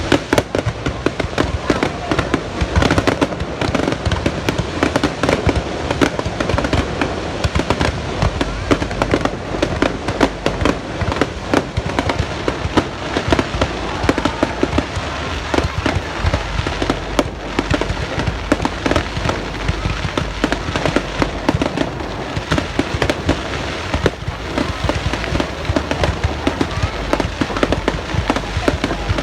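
New Year fireworks going off in a dense, continuous barrage of bangs and crackles, many reports every second with no letup.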